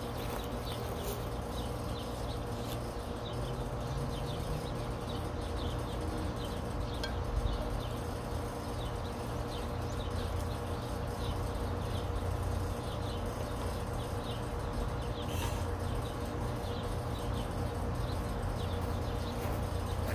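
Outdoor ambience: a steady low rumble with many short, faint high chirps scattered throughout.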